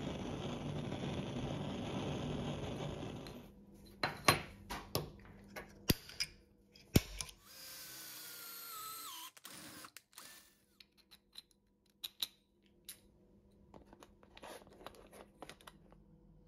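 Workshop metalworking sounds: a steady noise for the first three seconds, then sharp metal knocks and clanks at the bench vise. An electric drill then bores into a steel plate for about two seconds, its whine dropping as it winds down, followed by scattered clicks of parts being handled.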